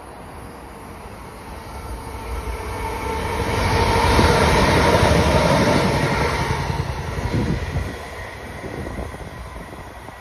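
Class 318 electric multiple unit passing on the rails, its rumble building to a peak about four to six seconds in and then fading, with a steady hum from the train over the top.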